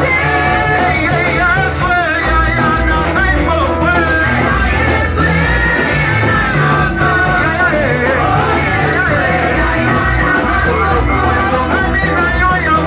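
Live worship music from a band, with voices singing a wavering melody over a steady bass line.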